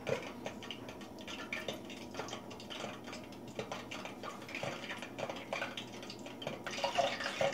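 Faint, irregular small taps and soft rustles of a raw chicken drumstick being pressed and turned in a ceramic bowl of flour.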